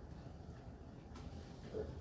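Hotpoint NSWR843C washing machine with its drum turning slowly through a tumble, a low steady hum, with a faint knock about a second in.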